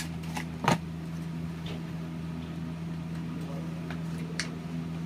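A steady low electrical hum, with a few light clicks and one sharper knock a little under a second in, as of parts being handled.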